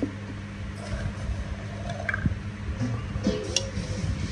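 Steady low hum with a few light clinks from a stainless steel pot being handled.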